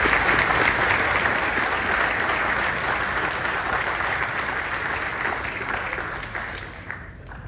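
Audience applauding after a speech, strongest at first, then thinning and dying away near the end.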